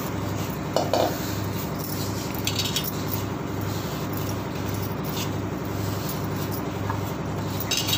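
Dry vermicelli being crushed and rubbed fine between the hands over a stainless steel plate: faint crackling with a few light clinks. Under it runs a steady low hum that pulses about twice a second.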